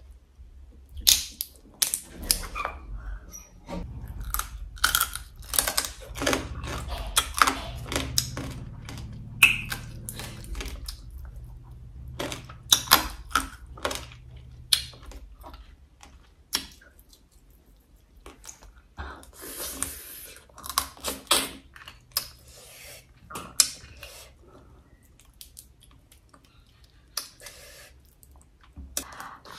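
Braised crab shells cracking and snapping as they are pulled apart by hand, mixed with close-up chewing and crunching. A rapid run of sharp cracks thins out after about halfway.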